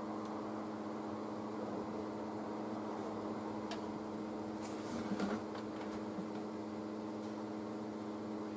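Steady background hum with a few faint clicks of multimeter probe tips touching parts on a TV power supply board.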